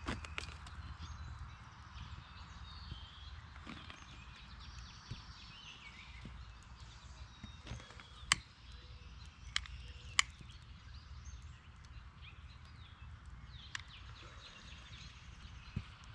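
Outdoor ambience of a steady hiss with birds chirping, broken by a few sharp cracks, the loudest two a little past the middle.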